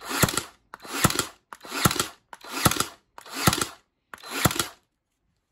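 Von Haus 18 V cordless nail and staple gun firing repeatedly in contact-firing mode, about six shots a little under a second apart: each a short build-up ending in a sharp crack as a nail is driven into wood. The repaired gun's motor-driven piston is driving nails again.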